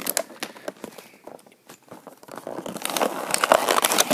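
Cardboard toy box packaging being torn open and handled: a run of crackles, crinkles and small tearing clicks that gets busier from about three seconds in.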